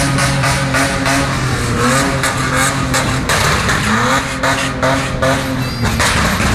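Car engines running in slow, dense street traffic, with engines revved up several times, the pitch rising about two, four and six seconds in. Sharp clicks and knocks come through throughout.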